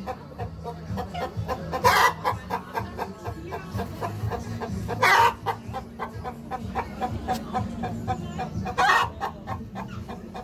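A chicken clucking, with three louder short calls about three to four seconds apart.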